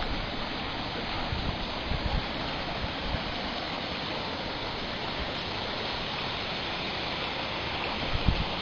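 Steady rushing noise of running water, with a few low thumps near the end.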